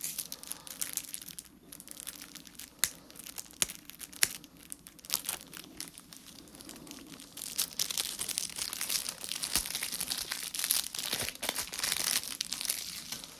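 Plastic wrapping being torn and crinkled off a pack of game cards, with sharp crackles that grow busier and louder in the second half.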